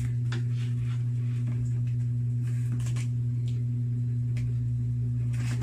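A steady low hum, with faint scattered taps and rustles of a cardboard box being handled.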